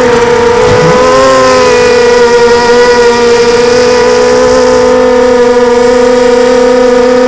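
Arris FPV250 mini-quad's electric motors and propellers whining steadily in flight, heard close from the onboard camera. The pitch wavers briefly about a second in, then holds level.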